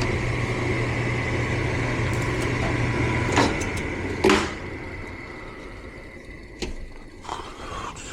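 Furnace running with a steady mechanical hum, broken by two sharp knocks about three and a half and four and a quarter seconds in, after which the hum drops away and it goes much quieter, with a few light clicks.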